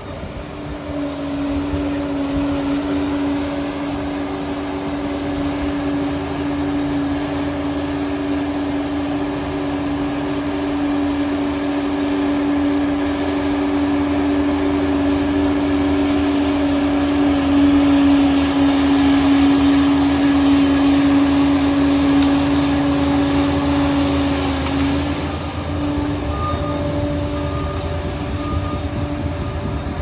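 Liebherr 746 crawler dozer running under load as it pushes soil: a steady machine drone with a strong whine held at one pitch. It grows louder toward the middle and eases off briefly about 25 seconds in.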